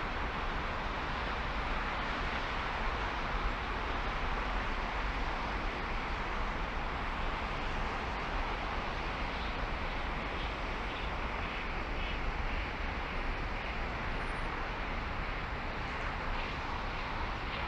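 Steady rushing road and wind noise from a car driving, even throughout with a low rumble underneath.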